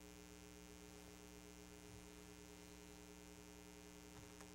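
Near silence with a steady electrical mains hum in the recording, and a couple of faint clicks near the end.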